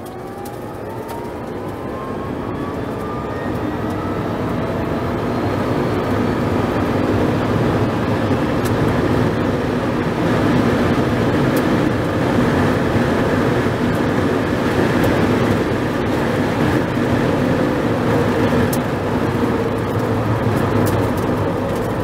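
Rimac Nevera R electric hypercar accelerating hard, heard from inside the cabin: a whine from the electric motors rising in pitch over the first few seconds, swamped by a building rush of wind and tyre noise as speed climbs past 230 km/h. Near the end the car is off the throttle and braking, and the noise eases slightly.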